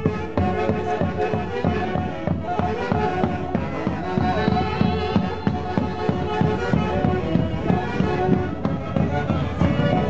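Live Andean festival orchestra playing, wind instruments carrying a sustained melody over a steady drum beat.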